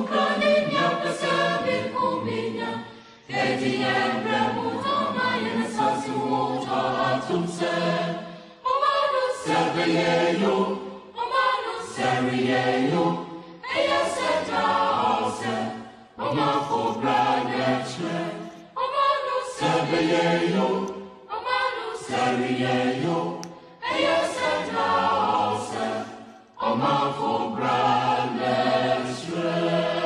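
Background music of a choir singing in phrases of about two to three seconds, each separated by a short break.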